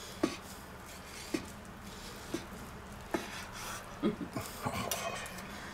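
Carving knife sawing through a veal roast, with soft knocks roughly once a second as the blade and fork meet the wooden cutting board.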